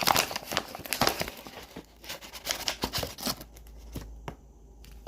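Scooping sea moss powder out of its container: a run of quick rustling and scraping noises for about three seconds, then a couple of faint clicks.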